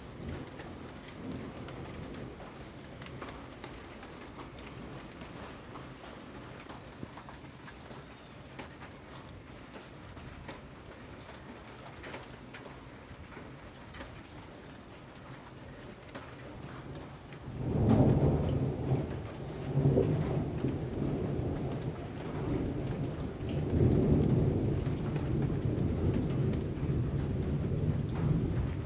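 Steady rain falling on leaves and the ground, with scattered drips. A little past halfway a loud rumble of thunder breaks in, swelling several times and rolling on.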